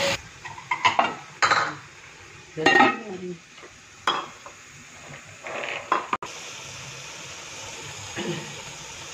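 Wooden spoon stirring minced beef and green peas in a metal pot, with several separate knocks and clinks of spoon and pot. After a cut about six seconds in, a steady sizzle of the keema cooking.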